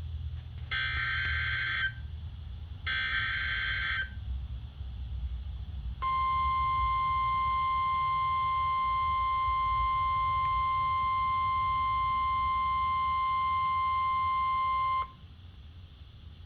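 NOAA Weather Radio EAS activation: the last two of three SAME header data bursts, each a harsh electronic screech about a second long, then after a two-second gap the steady 1050 Hz weather radio warning alarm tone for about nine seconds, which cuts off abruptly. These tones signal the start of an emergency alert, a tornado warning drill. A low hum and hiss of radio reception runs underneath.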